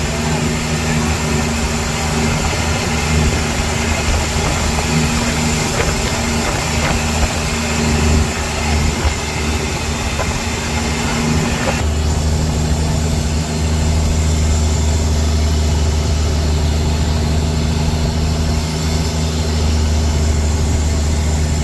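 Fishing boat's engine running steadily, a low hum under a hiss of wind and water. About twelve seconds in, the hiss drops away and the engine hum comes up stronger.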